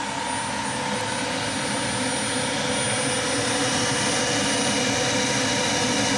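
Kellenberger 125/600U cylindrical grinder running under power: a steady machine hum and whine with several held tones, growing slowly a little louder.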